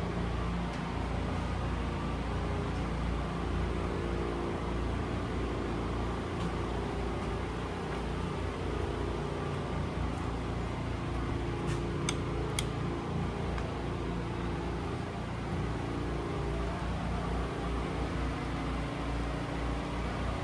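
Steady mechanical hum and drone of running machinery, with two sharp clicks about twelve seconds in.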